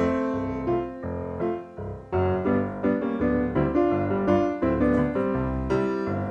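Background music: a melody of short notes, changing several times a second.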